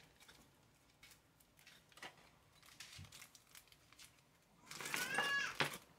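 Faint clicks of small parts being handled, then about five seconds in a dog gives a brief high-pitched whine lasting about a second.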